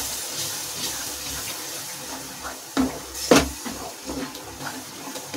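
Wooden spoon stirring a freshly watered spinach and sweet corn curry in a non-stick kadai, with the liquid swishing in the pan. Two sharp knocks of the spoon on the pan come about three seconds in.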